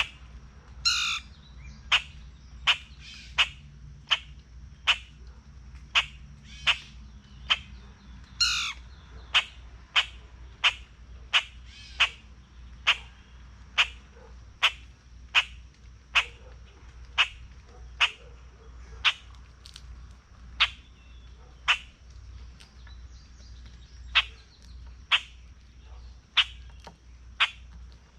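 Eastern chipmunk chipping: a steady series of sharp single chips, about one and a half a second, kept up without a break. Two longer, harsher calls break in about a second in and about eight seconds in.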